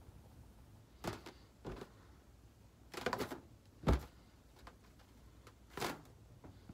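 A few short scuffs and rubs from an inflated latex balloon being handled and turned in the hands, the loudest about four seconds in.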